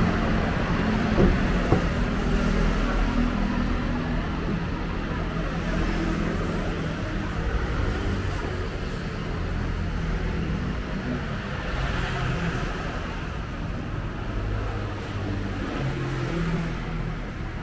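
City street traffic: cars and other vehicles running and passing, a steady mix of engine and tyre noise. Two short knocks come less than a second apart, about a second in.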